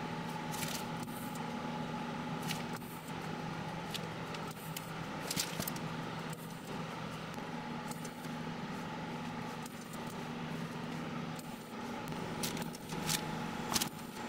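A low, steady machine hum, with scattered light clicks and scrapes from piping cream and spooning jam onto macaron shells with small plastic spoons.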